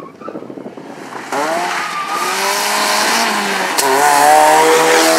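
Rally car engine revving hard as it comes on at speed, its note rising, dropping briefly with the gear changes and rising again, louder as it closes in. A single sharp pop or crack comes near the four-second mark. Faint wind noise comes before the engine cuts in about a second in.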